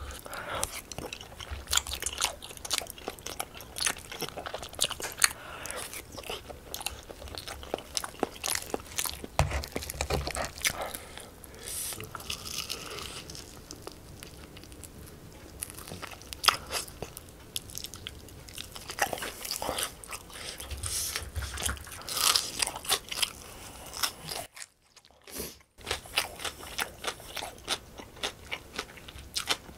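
Close-miked eating: biting and chewing crispy honey-glazed fried chicken and chewy tteokbokki, with many sharp crunches and wet mouth clicks. The sound drops out for about a second a few seconds before the end.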